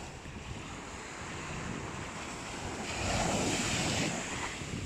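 Small shore waves breaking and washing over sand, with one wave breaking louder about three seconds in.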